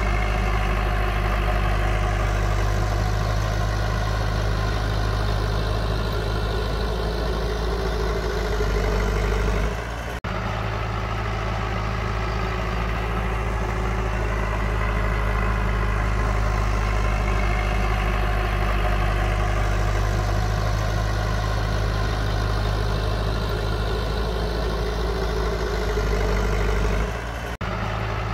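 Diesel engine of heavy earthmoving equipment running steadily, with two short drops in level, about ten seconds in and near the end.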